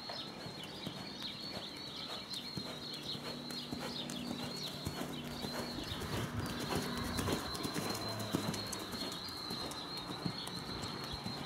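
Hoofbeats of a bay paint mare loping on arena dirt, with repeated high chirping throughout.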